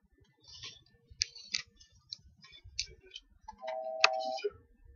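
A run of sharp clicks and taps, then a short steady hum lasting under a second, about three and a half seconds in, with a loud click in its middle.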